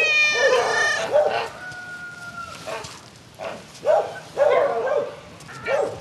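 Several cats meowing in short, repeated calls. A rooster crows once at the very start, for about a second.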